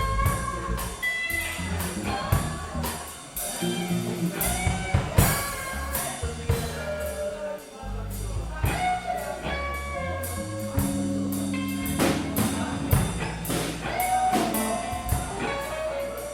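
A small band playing live: drums keeping time, a bass line stepping between low held notes, and a melody line above.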